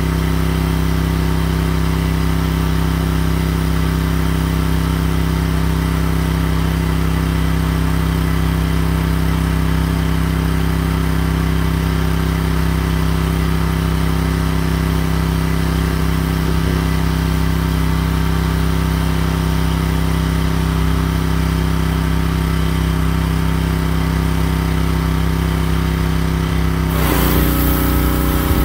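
Gasoline pressure washer engine running steadily. About 27 seconds in, a high-pressure water spray hiss starts and the engine note drops slightly as it takes the load.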